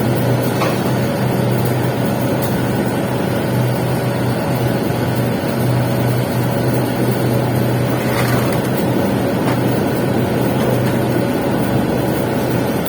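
Steady crackling hiss of a welding arc laying a capping pass on a pipe joint, over a constant low hum.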